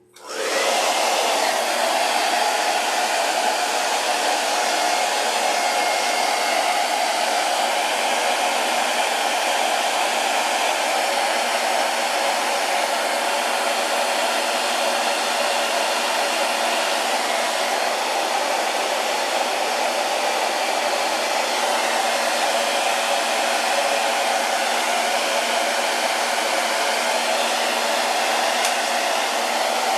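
Handheld blow dryer switched on and running steadily, blowing air to dry fresh flat paint on wood.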